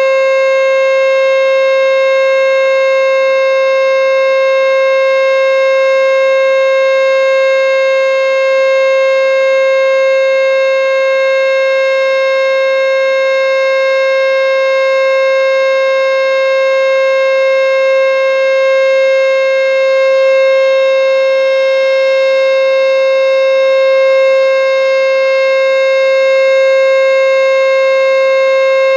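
American Signal T-121 electronic outdoor warning siren sounding the Full Alert signal during a test: one loud, steady tone that holds its pitch without rising or falling.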